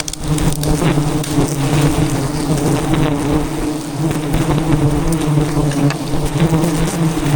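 A swarm of wild honeybees buzzing loudly and steadily around their hive, a dense unbroken drone.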